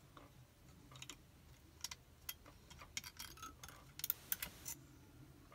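Light metallic clicks and taps of brass lock levers being handled and lifted out of a lever-type safety deposit box lock, with a quick run of sharper clicks about three to four and a half seconds in.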